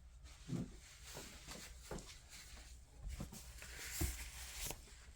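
Faint rustling of jacket fabric with a few soft knocks, from hands handling a patch on the cloth; the rustle swells for a moment about three to four and a half seconds in.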